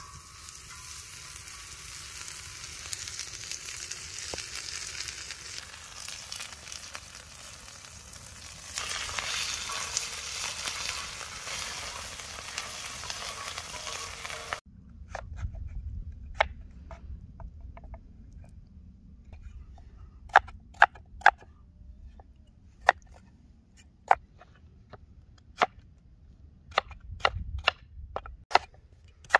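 Chopped lamb offal sizzling and frying on a hot saj griddle over a wood fire, stirred with wooden spatulas; the sizzle gets louder about nine seconds in. About halfway through it cuts off and gives way to a crinkle-cut knife chopping potato on a wooden board, a dozen or so sharp, irregular knocks.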